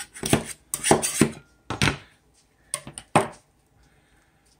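About seven sharp clacks and knocks over roughly three seconds as a metal scraper tool and a resin printer's metal build plate are handled and knocked against a tray.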